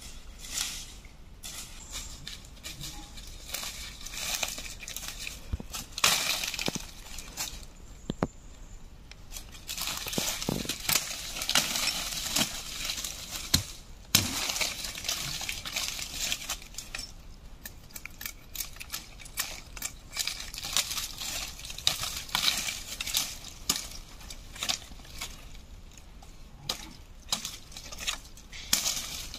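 Dry leaf litter crunching and rustling under footsteps and handling, with many scattered sharp crackles and clicks.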